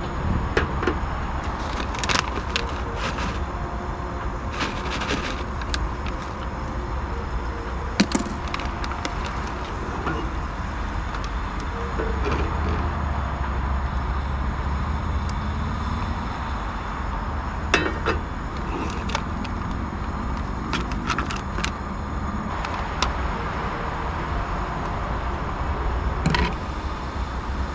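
Steady low rumble of road traffic, with a few sharp clanks and clicks of a pan and pot being handled on a two-burner propane camp stove, the loudest about 8 and 18 seconds in.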